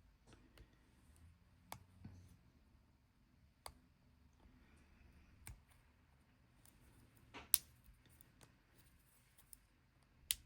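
Scattered small clicks and taps of a replacement bezel being worked onto a Casio G-Shock G-2300 watch case, with two louder, sharper clicks, one about two-thirds of the way through and one near the end.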